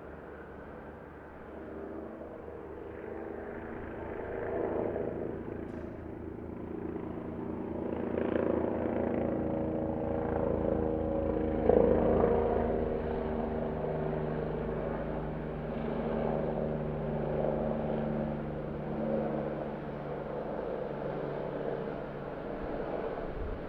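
Helicopter in flight, its rotor beating in rapid regular pulses over a steady engine drone, growing louder to a peak about halfway through, then easing off.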